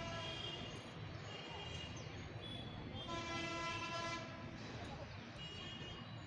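Vehicle horns from nearby street traffic sound several times over a steady low traffic rumble. The longest is a single flat, steady tone lasting about a second and a half midway through.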